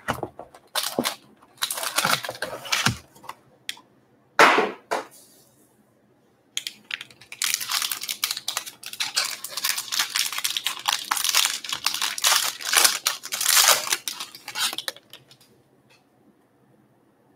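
Cardboard hobby box of Topps Inception baseball cards being opened: several short cardboard scrapes and rustles, then one loud sharp crack about four seconds in. From about six seconds on, a sealed card pack's wrapper crinkles and tears for roughly eight seconds as it is pulled open.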